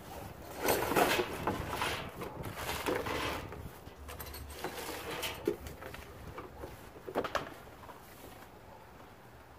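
Cardboard box being opened and plastic-bagged parts pulled out and set down, with crinkling plastic and scraping cardboard, loudest in the first few seconds. A few sharp knocks follow about five and a half and seven seconds in as parts are put on the table.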